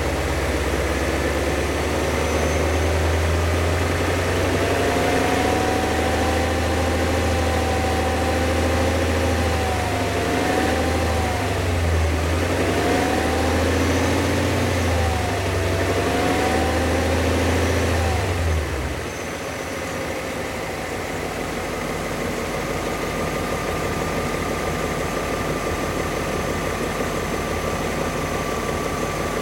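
BMW E39 M5's S62 V8 engine running with the revs rising and falling, then dropping suddenly to a quieter steady sound about 19 seconds in. The owner suspects worn rod bearings behind a sharp knock on acceleration and around 1500 rpm.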